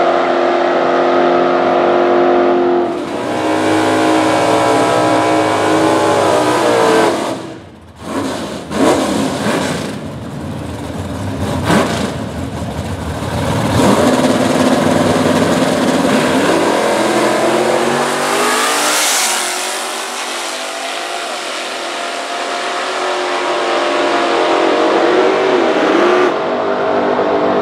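Chevy Nova drag cars' V8 engines running at full throttle down a drag strip, their pitch climbing and falling through the gears. The sound comes in several edited passes that change abruptly from one to the next.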